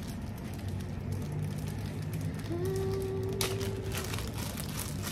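Clear plastic zip bags of small parts crinkling and crackling as they are handled, with a sharper crackle about three and a half seconds in. A steady low hum runs underneath, and a short held tone sounds around the middle.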